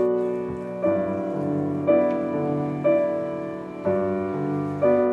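Background music: soft chords on a keyboard instrument, a new chord struck about once a second and fading away before the next.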